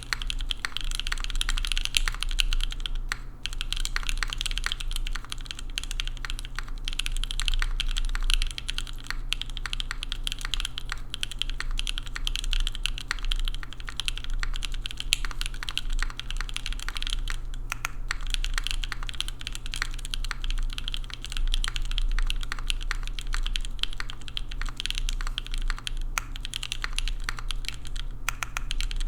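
Continuous fast typing on a Singa Kohaku custom mechanical keyboard with factory-lubed Gateron Cream Soda linear switches on a carbon fiber plate and GMK keycaps, with a few short pauses.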